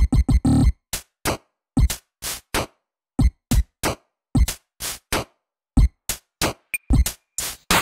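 Electronic intro music: a drum-machine beat of separate sharp hits, about three a second, with silence between them.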